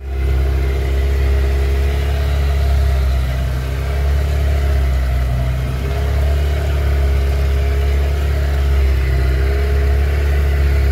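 Outboard motor running steadily under way, driving a small sailing yacht through choppy water; its pitch wavers slightly a couple of times.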